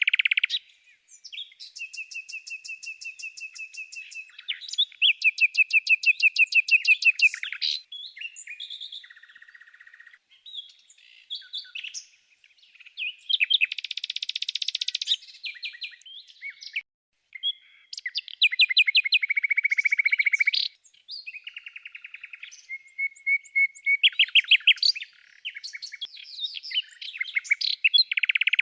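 Songbird singing a varied series of rapid trills and chirps with short pauses between phrases, including a harsh buzzy phrase about halfway through.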